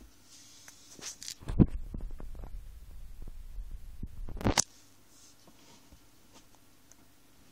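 Handling noise on the camera's microphone: a deep rumble with scattered knocks, loudest about one and a half seconds in and again near four and a half seconds, then cutting off suddenly. It is preceded by a few faint high crackles.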